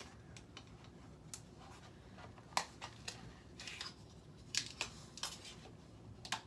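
A seam guide being fitted and slid onto a Bernina 570 QE sewing machine's extension table: a handful of short clicks and scrapes from the parts, mostly in the second half.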